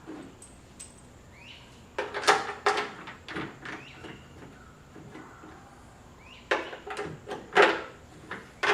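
Short metallic clicks and knocks as the door latch and lock actuator assembly is handled and positioned inside the door, in two clusters a few seconds apart, with a faint squeak or two.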